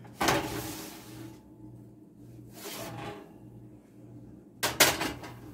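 Oven door of an electric range being handled: a rush of sound as it hangs open about a quarter second in, then a few sharp clunks near the end as it is shut.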